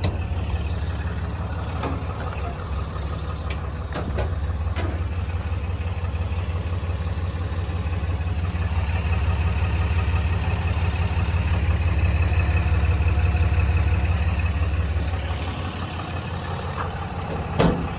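Large engine idling steadily, swelling slightly in level for a few seconds mid-way. A few sharp clicks or knocks come about two, four and five seconds in and again near the end.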